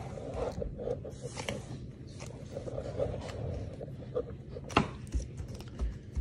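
Handling sounds as a loaf of soap is pushed along a wooden board and a metal wire cheese slicer is lifted over it: light scrapes and knocks, with one sharp click a little under five seconds in and a couple of soft thumps near the end.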